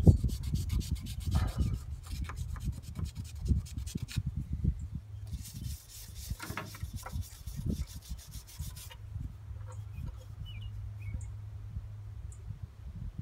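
A small brush scrubbing hardened carbon and old oil off the cylinder and valve area of a Kohler K301 engine, in quick rasping strokes. The scrubbing runs for about the first four seconds, comes back as a steadier spell around the middle, and then gives way to a quieter stretch.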